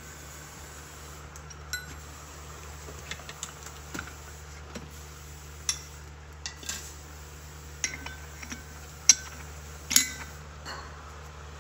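Light metallic clinks and taps of a steel bearing cup race, chilled in liquid nitrogen, being handled and set into a bus wheel-hub bore. There are about a dozen scattered clinks, the loudest two near the end with a brief ring, over a steady low hum.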